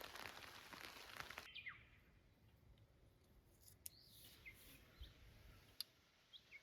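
Near silence with a few faint, short bird chirps. A faint crackling hiss in the first second and a half cuts off suddenly.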